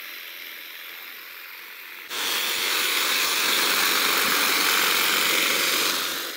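Homemade battery-powered electric lawnmower driven into thick, tall grass: a loud, steady, hissing rush of the spinning blade cutting starts suddenly about two seconds in and drops away near the end.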